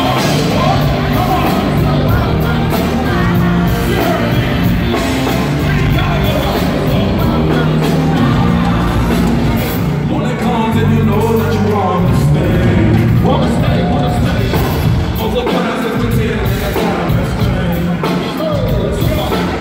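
Loud live hip-hop concert music over a PA system, with a steady bass line and a performer's vocals on a microphone, recorded from among the crowd.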